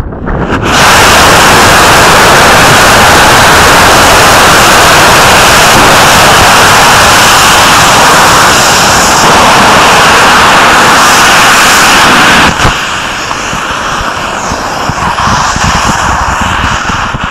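Q-class rocket motor on a static test stand igniting and firing with a steady, very loud roar for about twelve seconds, then cutting off suddenly at burnout. A lower, uneven rushing sound follows as the motor trails smoke.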